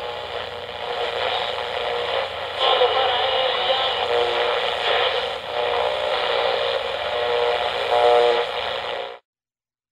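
Radio station intro audio with an old-radio sound: a thin, hissy stream of noise with a few held tones, cutting off suddenly about nine seconds in.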